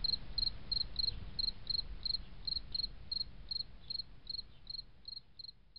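Insect-like chirping: a short high chirp repeating evenly about three times a second over a low rumble, fading out gradually.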